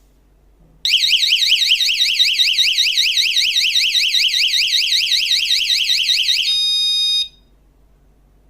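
SF18C wireless magnetic door alarm sounding its siren: a loud, high-pitched warble sweeping up and down about five times a second. It switches to a short steady tone near the end, then cuts off suddenly.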